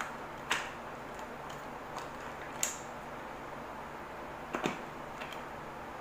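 A handful of short plastic clicks and taps from handling a recessed LED downlight as it is set onto its plastic junction box, with a double click near the end, over a faint steady background hum.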